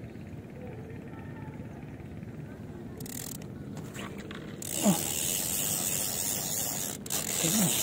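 A low steady background of wind and water, then about halfway through a loud rushing hiss as the rod and phone are grabbed and moved: handling and wind noise on the phone's microphone. A short voiced exclamation cuts in just after the hiss starts.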